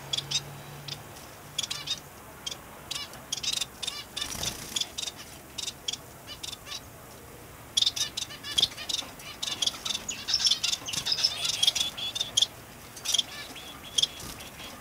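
Small caged finches chirping and calling in short, high notes: scattered calls at first, thickening into a busy run of chatter about halfway through.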